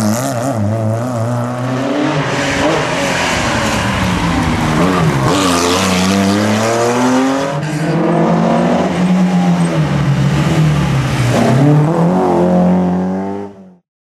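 Rally car engines revving hard through a tight hairpin, one car after another, the pitch climbing and dropping again and again with gear changes and lifts off the throttle. The sound cuts off abruptly near the end.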